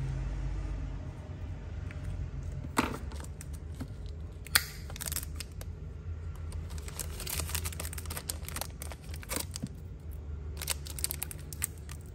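Handling of a Zippo lighter: scattered metallic clicks and rustles in small clusters over a low steady hum, the sharpest click about four and a half seconds in.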